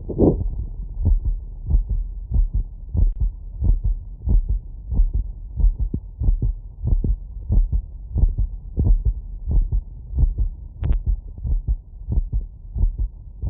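Human heartbeat heard through a stethoscope after exercise: steady paired lub-dub beats at a quickened rate of about one and a half beats a second, deep and muffled. A brief rubbing noise comes at the very start.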